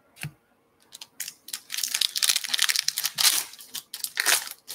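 Foil trading-card pack wrapper crinkling and tearing as it is ripped open and the cards are pulled out. There is a single click at first, then a dense run of crackling for about two seconds, and another short burst near the end.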